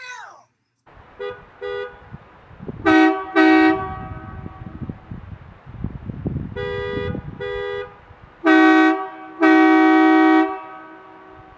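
HornBlasters Rocker AH-S2 two-trumpet ABS train horn sounding in pairs of blasts, two notes together. First come two short faint toots, then two loud short blasts, two medium toots, and finally two loud blasts, the last held about a second.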